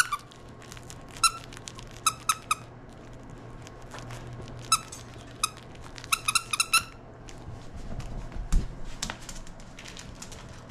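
Squeaker in a plush Chewbacca dog toy squeezed by hand, giving short squeaks, singly and in quick runs of three to five. A dull thump comes near the end.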